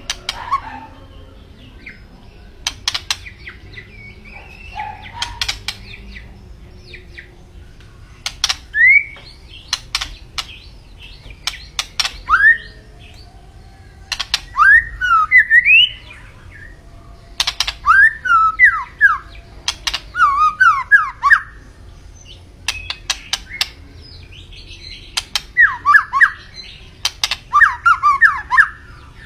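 White-rumped shama singing: bursts of quick, sweeping whistled notes mixed with sharp clicks, in phrases a few seconds long with short pauses between them.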